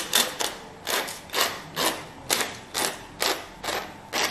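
Wooden pepper mill grinding peppercorns, a short rasping crunch with each twist of the head, a little over two twists a second.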